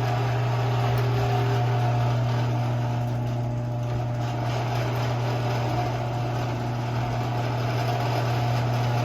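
Craftsman garage door opener's electric motor running steadily as it drives the door, a continuous low hum with a faint higher whine over it.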